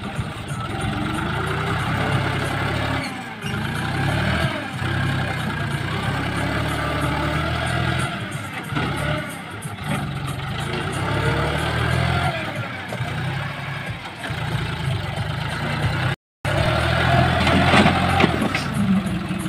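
John Deere 5036 tractor's three-cylinder diesel engine running under load, its speed rising and falling as the front loader digs sand and lifts it. The sound drops out completely for a moment late on.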